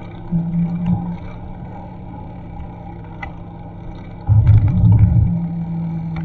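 Low rumble of wind and road noise on a bike-mounted action camera's microphone while cycling, with a louder burst of buffeting about four seconds in.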